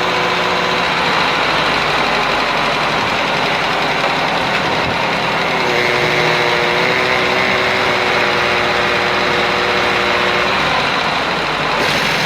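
Ford 8N tractor's four-cylinder flathead engine running steadily at idle, on its first start after twelve years standing, with a freshly cleaned carburettor and fresh fuel.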